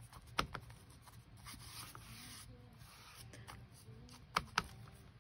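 Foam sponge applicator rubbing a light coat of sealer over an old paper book page: quiet, scratchy scrubbing strokes on paper, with two sharp taps close together about four seconds in.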